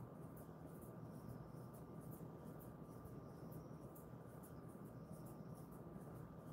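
Faint, quick, repeated rubbing strokes over a dog's short coat as it is massaged, over a steady low background hum with a faint steady whine.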